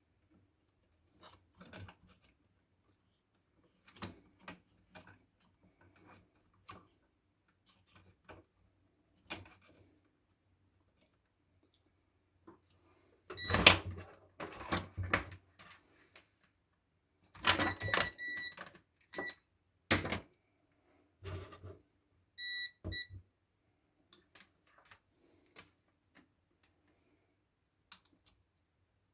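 Clicks, knocks and rattles of small plastic and metal parts and tools being handled while a kettle is taken apart, busiest in the middle. Short electronic beeps sound near the middle and twice in quick succession a few seconds later.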